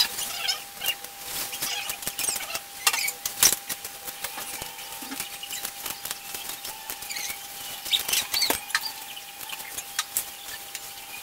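Scattered clicks, taps and clinks of food preparation: a knife cutting chillies and cabbage by hand over a tray of sea snail shells. A faint steady tone runs underneath.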